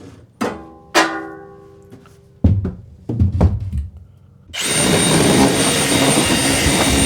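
Power drill running steadily at full speed with a high whine, starting about two-thirds of the way in, as the pipe hole in the wood blocking is re-drilled. Before it come two sharp knocks with a short ringing tone and a few dull thumps.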